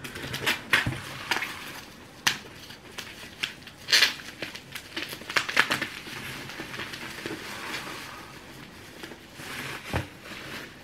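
Crinkling and rustling of bubble wrap and cardboard as a bottle is dug out of a packed box and unwrapped, with scattered sharp clicks and knocks of handling, the loudest about four seconds in and near the end.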